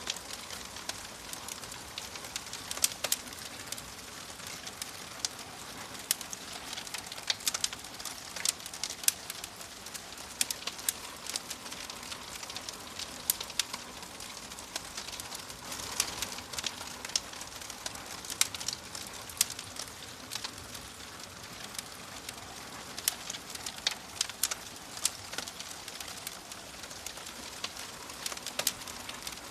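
Wood fire crackling: a steady hiss of flames with frequent irregular sharp pops and snaps.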